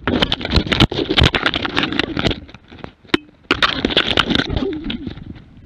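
Close, violent scuffle of wolves attacking a Jämthund (Swedish elkhound): fur and bodies brushing and knocking against the GoPro on the dog's harness, with crackling of brush and twigs, many sharp clicks and knocks, and a brief lull about halfway through.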